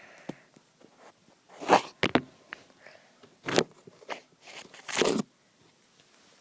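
Small plastic toy figures being handled and moved on a play surface: a few short scrapes and knocks, the loudest about two, three and a half and five seconds in, with faint ticks between.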